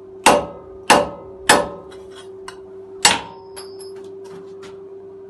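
A steel knife blade struck hard into a hard object four times, three blows in quick succession and a fourth about a second and a half later, each a sharp clack with a brief metallic ring. It is a test of the blade's edge, which comes through unchipped. A steady low hum runs underneath.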